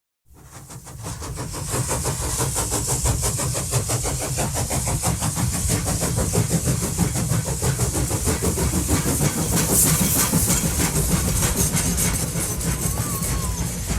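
A locomotive engine running with a fast, even beat and a heavy low rumble, fading in over the first couple of seconds.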